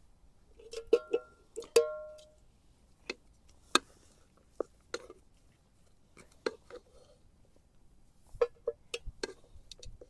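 Irregular sharp clicks, knocks and clinks of hard objects being handled, about a dozen in all. Two of them, near the start, ring briefly with a clear tone.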